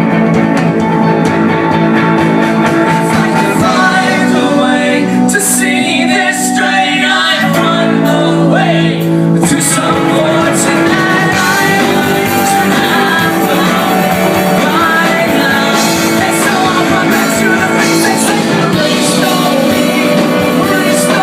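A rock band playing live, electric guitars carrying the song, with a singer's voice over it.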